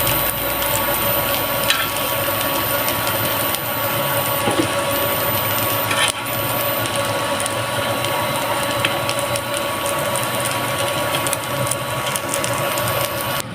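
Chicken nuggets sizzling and crackling steadily as they fry in hot oil in a pan.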